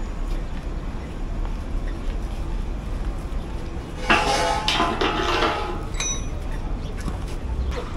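City street ambience: a steady low rumble of traffic, with one louder, noisy burst about four seconds in that lasts about a second and a half.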